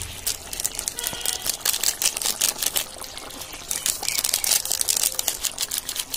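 Thick chicken curry bubbling and spluttering in a pan, with the crinkle of a paper-foil spice packet as garam masala powder is shaken in. The crackle comes in irregular clusters.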